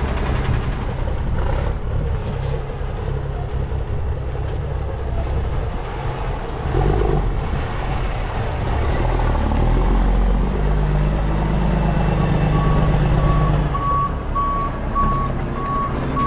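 Heavy wrecker's diesel engine running as it maneuvers, then its backup alarm beeping steadily from about three-quarters of the way in as it reverses up to the semi it will tow.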